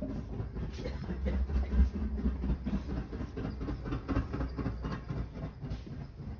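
A low rumble with irregular rattling and clattering, a little louder just under two seconds in.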